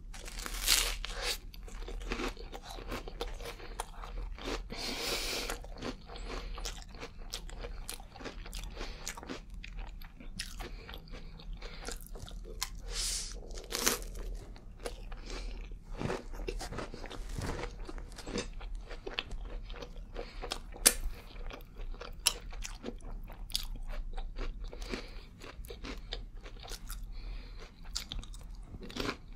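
Close-miked crunching and chewing of small rice cakes topped with smashed avocado: a dense, irregular run of crisp crunches with wet chewing between, the sharpest about a second in and near 14 and 21 seconds.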